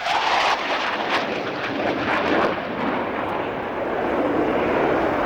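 Fixed-wing aircraft flying past, its engine noise a steady, fairly loud rush.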